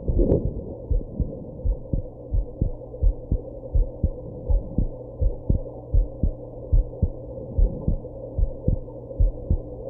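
A human heartbeat heard at the chest: steady lub-dub pairs of low thumps, fast at about 100 beats a minute, after drinking alcohol and smoking. A low steady hum sits underneath, and a single sharp knock comes about a quarter second in.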